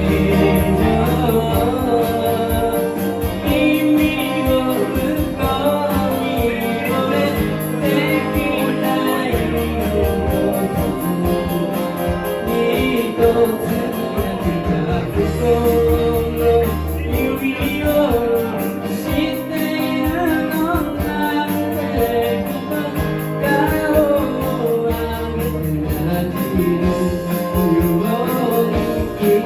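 Live band playing a Japanese pop song with a singer's vocal over a steady pulsing bass and accompaniment.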